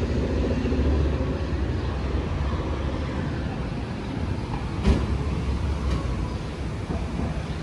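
Steady low rumble of outdoor city background noise, with one sharp knock about five seconds in.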